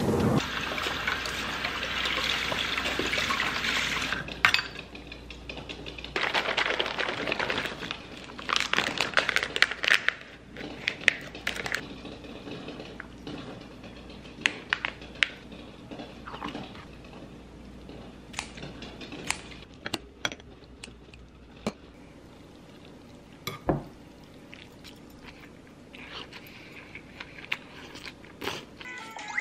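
Liquid pouring and splashing in several stretches over the first ten seconds or so, among them cold noodle broth poured from a pouch onto noodles in a ceramic bowl. After that come scattered light clicks and taps of metal chopsticks against the bowl.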